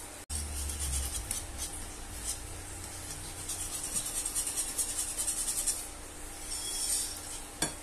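Wire whisk beating a runny tapioca-flour and coconut-milk batter in a bowl: quick rhythmic scraping strokes against the bowl, with a single sharp tap near the end.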